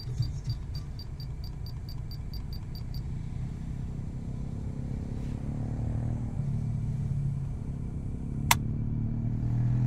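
Car engine idling, a steady low hum heard from inside the cabin, growing louder near the end. A run of faint ticks, about four a second, fades out after about three seconds, and a single sharp click about eight and a half seconds in comes as a hand presses a key on the Sony Walkman cassette player.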